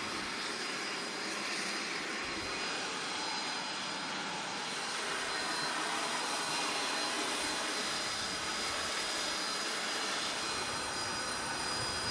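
Aircraft jet turbine running steadily: an even rushing noise with several steady high-pitched whistling tones over it.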